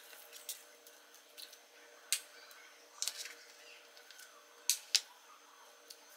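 Scattered light clicks and taps of kitchen utensils handling food, with two sharper clicks close together about three-quarters of the way through.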